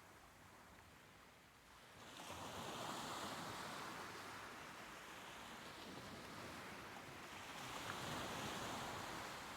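Soft ocean waves washing ashore: a quiet lull, then a wave swells in about two seconds in and another near the end, each a steady hiss of surf.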